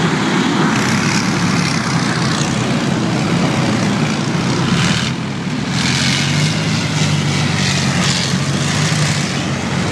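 Heavy engines of tracked armoured fighting vehicles running as they drive through mud: a loud, steady mechanical noise with a low drone.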